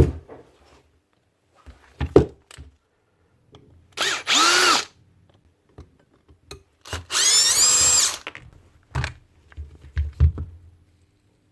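Milwaukee M12 stubby impact wrench's motor run twice off the trigger with no load, each time whining up in pitch as the trigger is squeezed, the second run a little longer. Its variable-speed trigger switch has a dead spot. Knocks and clicks from handling the tool come between and after the runs.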